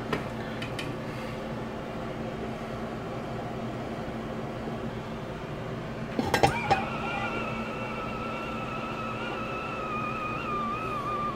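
Stainless-steel pot lid set down on a pot of boiling beans with a short cluster of metal clinks about six seconds in. Right after, steam escaping through the lid starts a steady two-tone whistle that wavers and drops slightly in pitch near the end, over a steady low hum.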